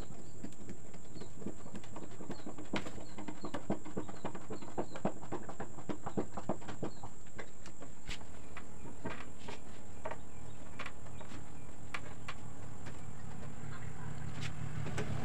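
Hand screwdriver turning wood screws into a plywood boat deck: a run of short clicks and creaks, thickest in the first half and sparser later. Birds chirp faintly in the background.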